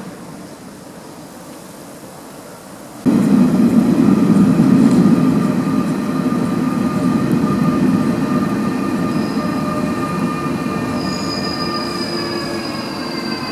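Train running with a loud rumble, steady whining tones and a high wheel squeal. The sound comes in suddenly about three seconds in, and several of its tones slide downward near the end.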